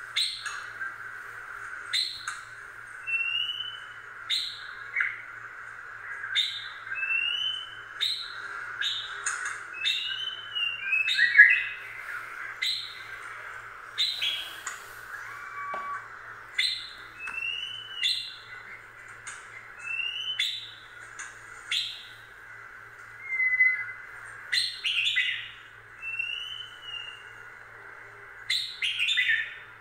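Small birds chirping in repeated short calls, some rising quickly and some arched, every second or two, over a steady background hum.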